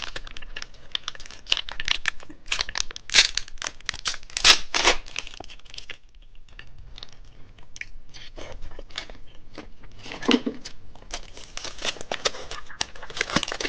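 Plastic candy wrapper being torn open and crinkled by hand, in irregular crackling bursts.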